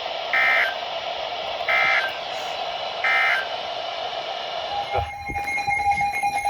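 Weather radio broadcast sending three short bursts of warbling digital data tones about a second and a half apart over steady radio hiss: the end-of-message code that closes an emergency alert. About five seconds in, a steady electronic alert tone starts.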